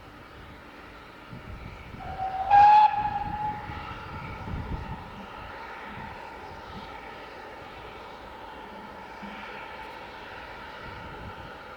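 Steam locomotive whistle: a note that rises slightly about two seconds in and peaks in a short loud blast, then a fainter steady tone that carries on.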